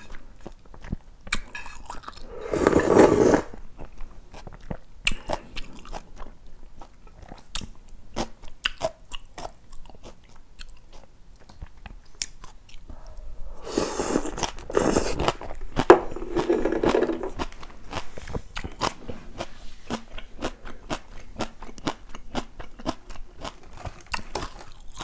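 Close-up eating sounds of a person eating cold young-radish kimchi noodles and a fried cheese pork cutlet: crunchy chewing and biting with many small clicks. There are louder noisy stretches about three seconds in and again around fourteen to seventeen seconds in, as broth and noodles are slurped.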